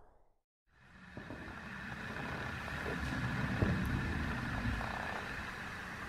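Steady low hum and hiss of background noise, fading in after a moment of silence, with a few faint knocks around the middle.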